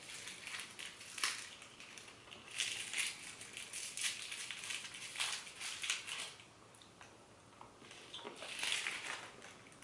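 Foil wrapper of a small chocolate truffle crinkling in bouts of fine crackling as it is unwrapped by hand.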